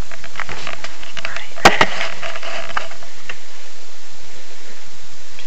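Handling noise from the camera being moved: scattered clicks and knocks, with a sharp knock about a second and a half in, over a steady hiss.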